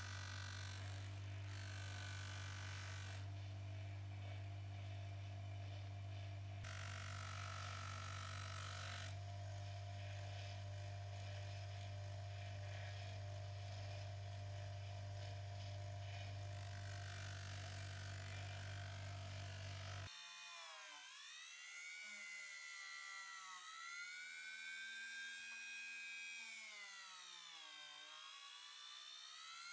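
Electric bench grinder running steadily with a buffing wheel as a scissor blade is polished against it. About 20 seconds in, this changes to a handheld rotary tool with a small buffing wheel, a higher, thinner whine whose pitch dips and rises several times.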